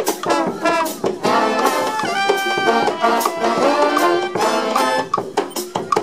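A street brass band playing an upbeat tune: horns including trumpet, trombone and saxophone over frequent sharp drum hits. A few held horn notes come a little after two seconds in.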